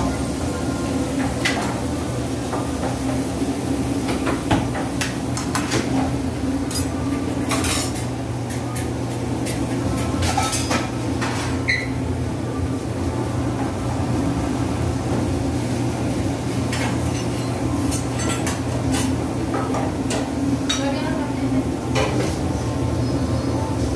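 Busy commercial kitchen: scattered clinks and clatter of metal utensils, pans and dishes over a steady low machine hum.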